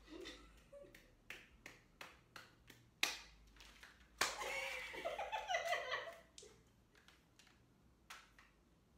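A string of sharp hand claps and snaps, the loudest two about three and four seconds in, followed right after by about two seconds of women's laughter.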